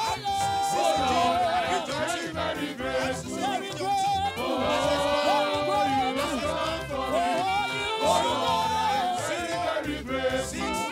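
Gospel choir singers, led by women's voices on microphones, singing a worship song over band accompaniment.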